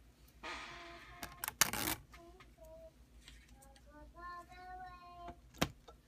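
Bench handling noises, a brief rustle followed by a sharp click, then faint singing from background music for a few seconds, with another click near the end.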